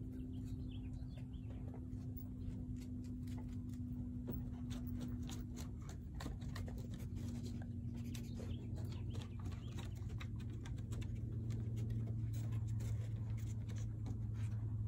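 A dog's claws clicking irregularly on wooden deck boards as it moves about searching, over a steady low hum.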